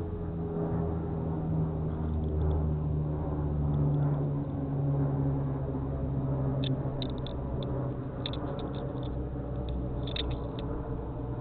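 An engine running steadily with a low hum that sinks slowly in pitch. Several short, high ticks come in the second half.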